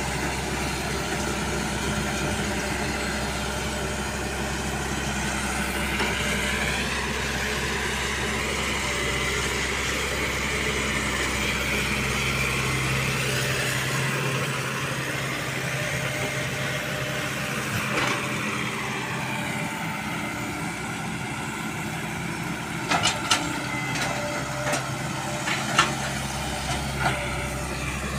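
Diesel engine of a Caterpillar E120B tracked excavator running steadily, with a whine that rises and falls as it works. A few sharp clicks come near the end.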